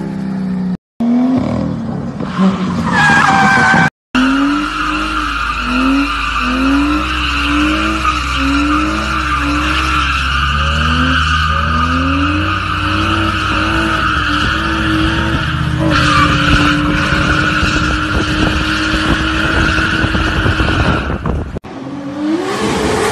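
BMW car's tyres squealing steadily under power as its engine revs rise and fall about once a second, then hold at a steady pitch. Abrupt cuts about one and four seconds in and near the end switch between clips of similar car sound.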